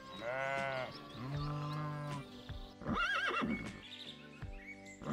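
Sheep bleating twice over steady background music, a higher baa and then a lower one. About three seconds in comes a short, wavering horse whinny.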